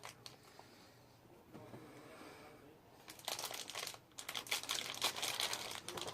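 Toy packaging crinkling and crackling as it is unwrapped by hand. It starts about three seconds in, after a near-silent stretch.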